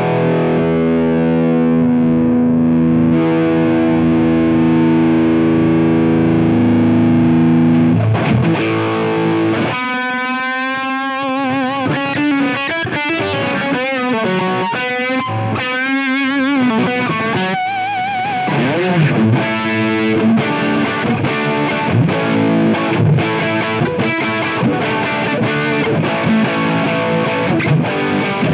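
Electric guitar through an iSet Hot Distortion pedal with thick, saturated gain. A chord is held ringing for about eight seconds, then comes a lead line with wide vibrato and bends. In the last third it moves to quick rhythmic picked notes.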